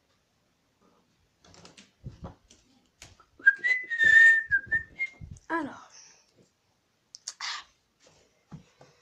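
A person whistling a short tune of a few notes for about two seconds, mixed with the rustles and knocks of someone moving about and handling a phone.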